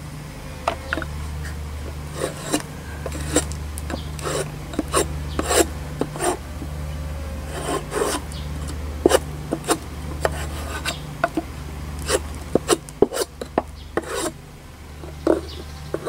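Metal spatula scraping the wooden floor of a beehive's bottom drawer to clear out debris: a run of quick, irregular scraping strokes, metal on wood.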